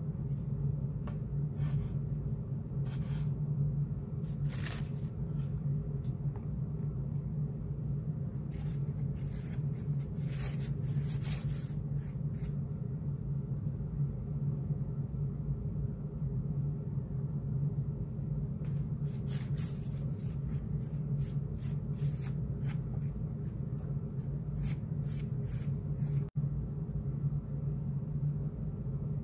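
A steady low hum throughout, with scattered light clicks and scrapes from a plastic spoon and paint cups being handled. The clicks come in two clusters, about a third of the way in and again past the middle.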